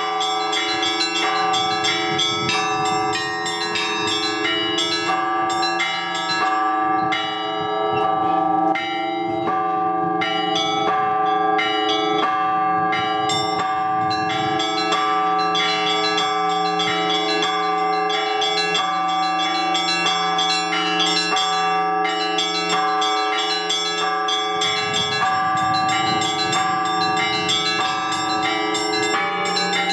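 Orthodox church bells rung by hand from a bell tower: quick repeated strikes on the small bells over the long hum of the larger bells. The strikes keep coming several a second, with the deeper bells sounding under them.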